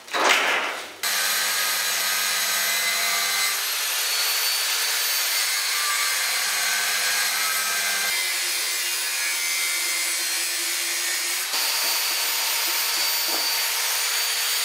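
Corded angle grinder running continuously as it cuts stainless steel, a steady loud grinding with a high motor whine that shifts pitch a few times as the load changes. A brief loud sound comes just before the grinding starts.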